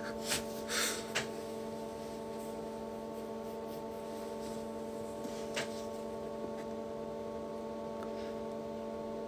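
Steady background hum made of several steady tones, with a few faint rustles or clicks in the first second or so and one more about halfway through.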